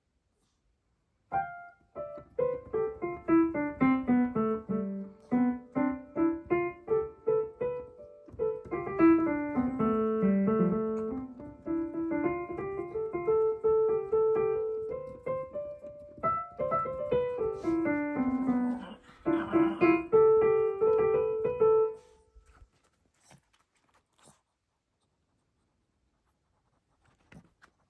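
Piano playing a flowing piece of rising and falling broken chords, which stops about 22 seconds in.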